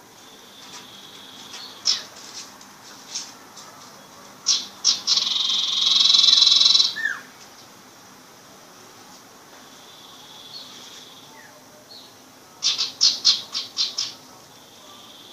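A young sirpu songbird at the learning stage practising its calls: scattered sharp chips, a loud harsh rattling call of about two seconds partway through, and a quick run of six or seven chips near the end.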